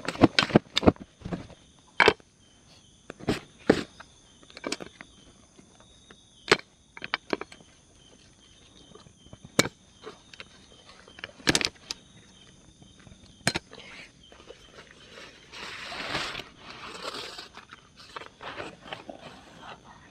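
Clicks and clacks of a roll-up slatted camp table top being unrolled and fitted onto a folding table frame, scattered knocks every second or so. Underneath, a steady high-pitched insect drone, with a few seconds of rustling near the end.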